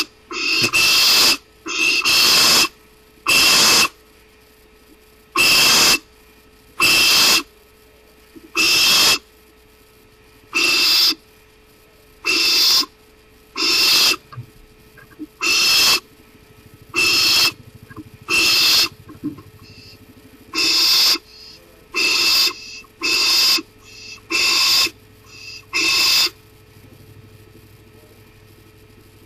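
Barn owl giving a long series of harsh, hissing screeches, each about half a second long, coming roughly one every second to second and a half. The calls stop a few seconds before the end.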